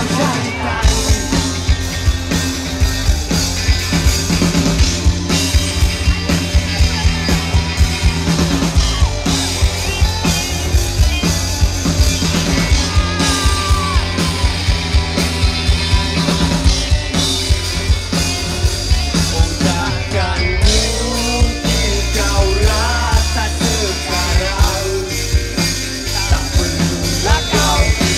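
Live rock band playing through a large PA: a steady drum-kit beat and bass with electric guitars, and sung lead vocals over the band, clearest in the second half.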